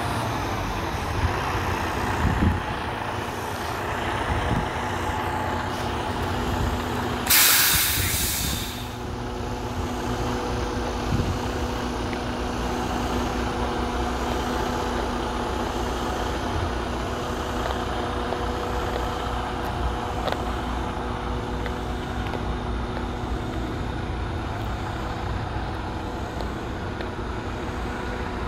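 Detroit DD16 inline-six diesel of a 2016 Western Star 4900SF idling steadily. About seven seconds in, a loud hiss of air from the truck's air system lasts about a second and a half.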